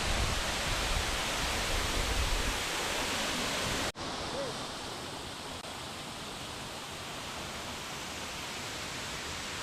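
Large waterfall rushing as a steady noise, with wind rumbling on the microphone for the first couple of seconds. The sound cuts out abruptly for an instant about four seconds in and returns as a quieter, steadier rush.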